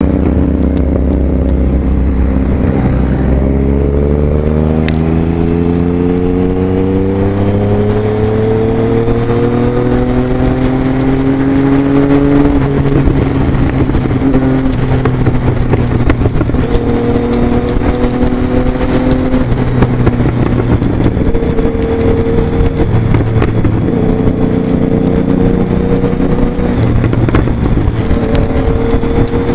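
Motorcycle engine under way, heard from the bike itself, with heavy wind buffeting on the microphone. The engine's pitch climbs steadily for about ten seconds as it accelerates, drops suddenly at a gear change, then holds near cruising speed with small rises and dips.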